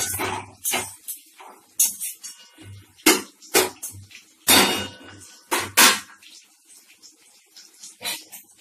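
Onions frying in hot oil in a pan, stirred with a spatula: irregular scraping and clattering strokes against the pan, which stop about six seconds in, leaving only a fainter sizzle.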